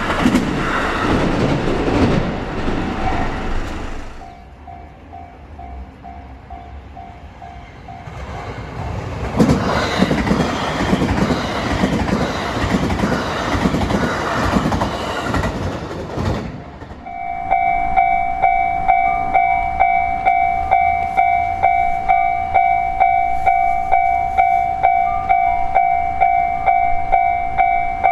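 JR Hanwa Line electric trains running past, one as it opens and another from about nine seconds in. About seventeen seconds in, a level-crossing warning bell starts, ringing loud and steady at about two strokes a second.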